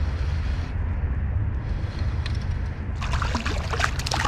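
Steady low wind rumble on the microphone. About three seconds in, a brief burst of splashing and dripping water as a hooked small snapper is brought up at the side of the kayak.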